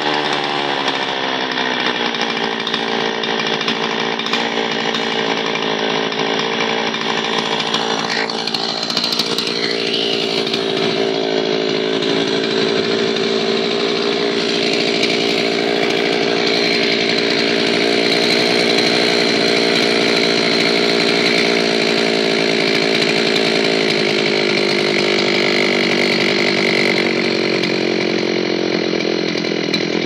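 Zenoah two-stroke chainsaw engine running steadily without cutting. Its pitch drops over the first two seconds, holds, and eases a little lower near the end as the carburetor is adjusted; the mechanic finds the engine speed too high.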